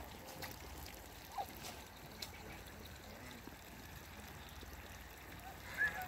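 Geese and ducks pecking and dabbling at feed: soft, scattered bill ticks over a faint steady hiss, with a brief goose call near the end.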